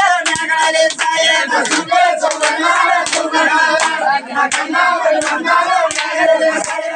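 Group hand clapping in a steady beat, about one to two claps a second, under voices singing a Telugu folk chant.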